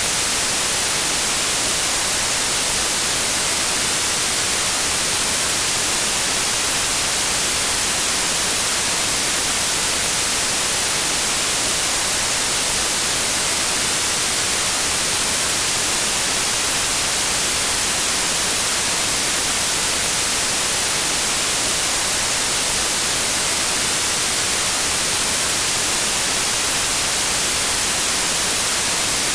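Synthetic white noise: a steady, even hiss, brightest in the treble, that holds unchanged throughout.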